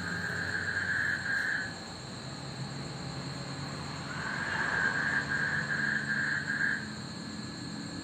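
A frog calling in two pulsing trills, one at the start lasting about a second and a half and a longer one of about two and a half seconds from four seconds in. A steady high insect whine and a low hum of distant traffic run underneath.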